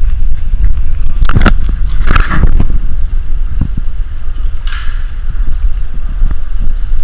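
Heavy, steady low rumble of movement and handling noise on a body-worn camera's microphone, with a few sharp clicks about a second in and scuffling bursts around two seconds and near five seconds.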